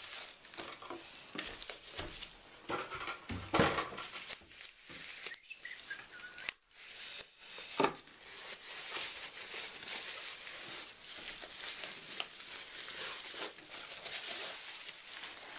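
Packaging crinkling and rustling as a computer power supply is unwrapped and handled, with scattered light knocks and clicks.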